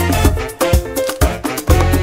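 Upbeat background music with a heavy bass and a steady beat.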